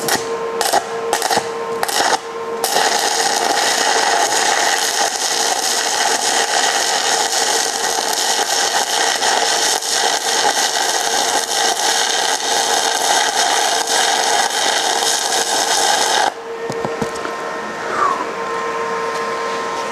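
Stick welding arc on a steel I-beam: a few brief arc strikes in the first couple of seconds, then a steady crackling, sizzling arc for about 13 seconds that stops abruptly. A steady hum runs underneath.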